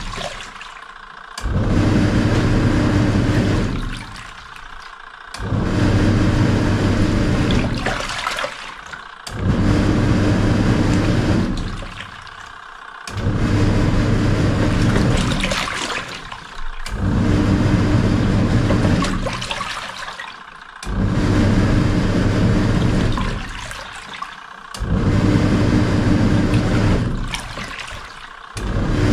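Samsung SW-655P twin tub washing machine washing: the wash motor hums and water churns for about three seconds, stops for about a second, then starts again, in a steady repeating wash pattern.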